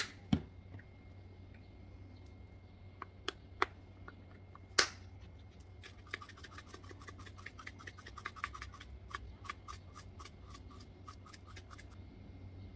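A few sharp knocks of a spice jar handled on the table, the loudest about five seconds in. Then about six seconds of quick, regular small clicks, five or six a second, as a spice jar is worked over a bowl of pasta to season it.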